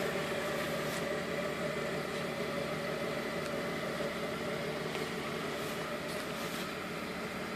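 Mercedes-Benz 250 GD Wolf's OM602 five-cylinder prechamber diesel idling steadily.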